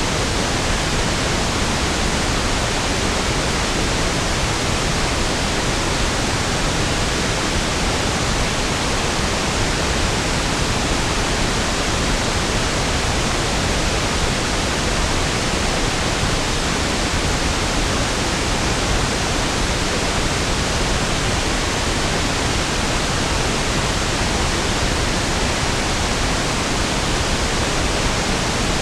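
Steady pink noise (1/f noise): an even, unchanging hiss with equal energy per octave, smoother and deeper than white noise.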